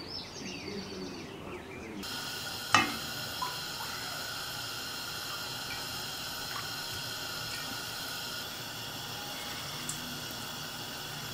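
Cooking oil pouring into a frying pan, a steady hissing pour, with one sharp knock about three seconds in. Faint bird chirps come before the pour starts.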